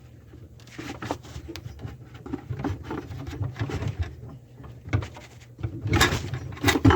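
Scattered clicks, scrapes and knocks of a garbage disposal being handled and fitted up onto the sink's mounting ring, with louder knocks about six seconds in and again near the end.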